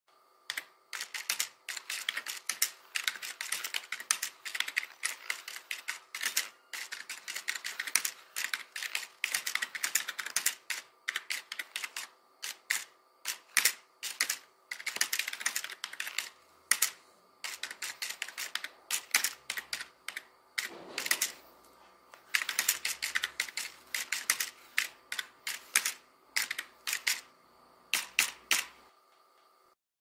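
Typing on a computer keyboard: runs of rapid key clicks in bursts, with short pauses between them.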